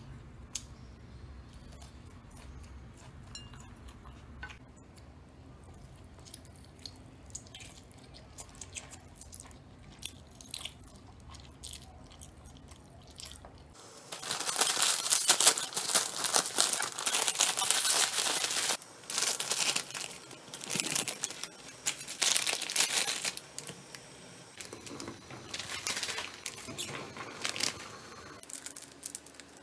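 Faint scattered clicks, then from about halfway the plastic wrapper of a Samyang Carbonara instant-noodle multipack crinkling and tearing in loud bursts, with short pauses between them.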